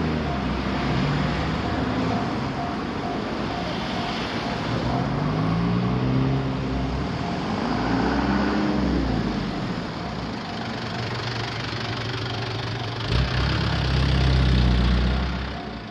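Road vehicle engines running and passing over a level crossing. Their pitch rises and falls, with one clear swell about eight seconds in, and the loudest engine comes near the end.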